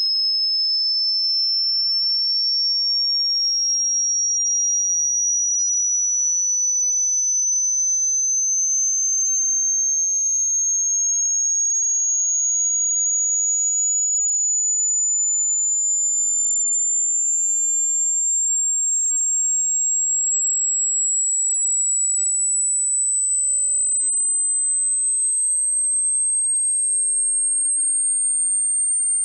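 A single pure electronic sine tone, high-pitched and steady in loudness, gliding slowly upward in pitch throughout: a synthetic frequency sweep.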